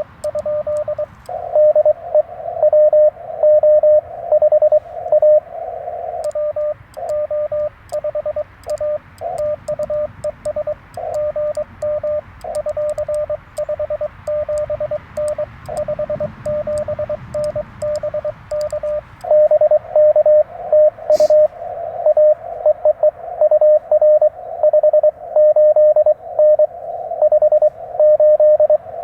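Morse code (CW) from a Yaesu FT-891 transceiver: a single steady tone keyed on and off in dits and dahs over radio band hiss. The keying is louder at the start and again from about two-thirds of the way in, quieter in between, where faint ticks run under it. There is one sharp click about two-thirds of the way through.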